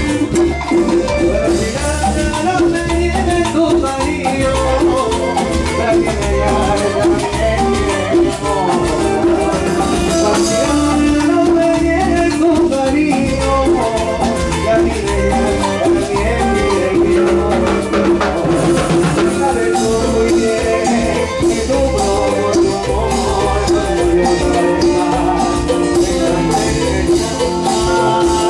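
Live band playing Latin dance music, a drum kit and bass keeping a steady beat under sustained melodic lines.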